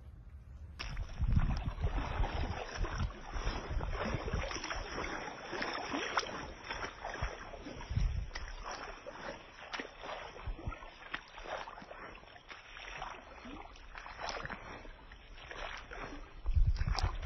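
Floodwater splashing and sloshing, full of small splashes and crackles, starting suddenly about a second in, with a few deep rumbles, the loudest near the end.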